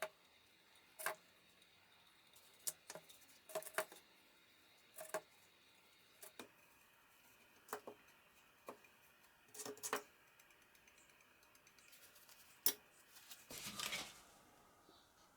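Faint, irregular light clicks and taps as a wooden finger joint is handled while carpenter's glue is applied and the pieces are fitted together. A short rubbing scrape comes near the end.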